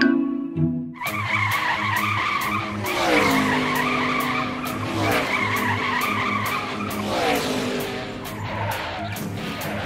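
Car sound effects starting about a second in: engines running and tyres squealing, with the engine pitch dropping about three seconds in and again near seven seconds, over background music with a steady beat.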